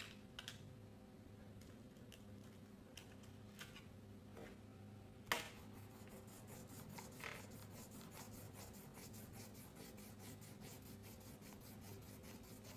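A crayon scribbling on paper in quick, short, repeated strokes, several a second, starting about halfway through. Before that there are a few light clicks of crayons in their tin and one sharper knock about five seconds in.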